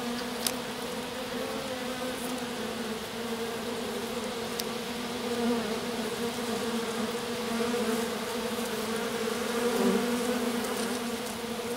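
A small swarm of honeybees clustered on their queen, buzzing close up: a steady low hum that wavers slightly in pitch.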